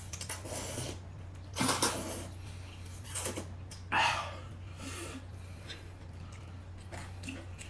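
Close-up eating noises: a few short, noisy mouth sounds of chewing and slurping, over a steady low electrical hum.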